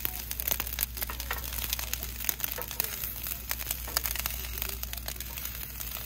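Lentils, quinoa and onions sizzling and crackling in a nonstick skillet over a butane camp-stove burner, with irregular sharp pops throughout as a wooden spatula stirs and scrapes the pan.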